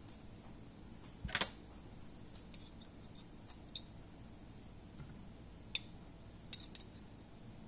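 Fat spitting in a stainless steel frying pan as a paper-wrapped stuffed chicken breast cooks: a few sharp, scattered pops over a faint background. The loudest pop comes about a second and a half in.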